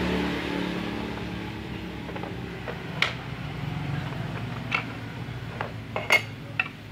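Metal parts clinking as an electric hand planer's front depth knob and metal front shoe are taken off and set down: four sharp clinks, the loudest about six seconds in. Under them runs a steady low hum that slowly fades.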